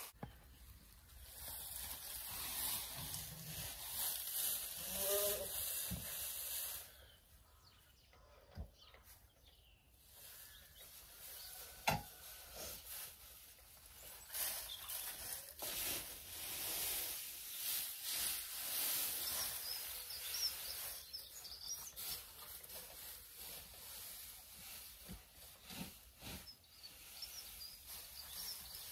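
Dry straw rustling in swells as a pitchfork lifts and shakes out loose straw bedding, with one sharp knock about twelve seconds in. Birds chirp faintly in the background.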